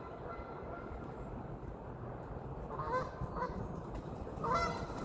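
Geese honking: a few short honks, two close together about three seconds in and another near the end, over a steady low rumble.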